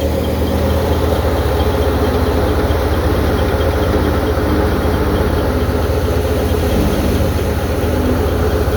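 Tractor engine running steadily at an even speed, with a rapid, regular firing pulse.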